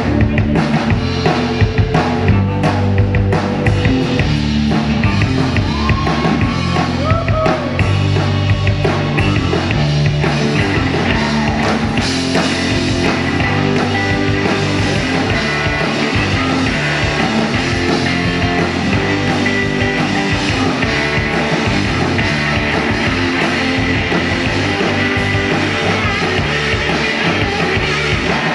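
Blues-rock band playing live: electric guitar lead over electric bass, drums and keyboards. The sound gets brighter and fuller about twelve seconds in.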